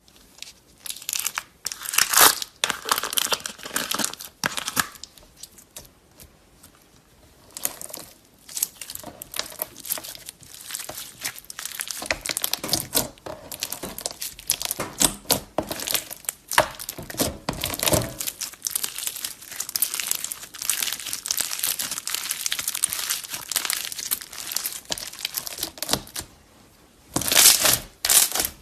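Slime being squeezed and worked by hand, giving dense runs of crackling, crinkling pops, with short pauses about six seconds in and again near the end.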